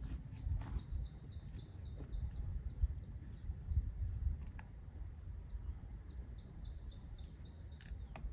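A small bird singing a fast trill of short, high, falling notes, heard twice, over a steady low rumble with a few sharp clicks.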